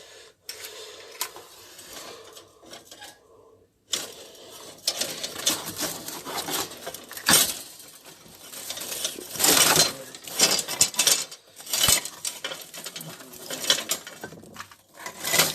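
Irregular clattering and clinking of hard objects being handled, quieter at first, then busier from about four seconds in with many sharp clicks.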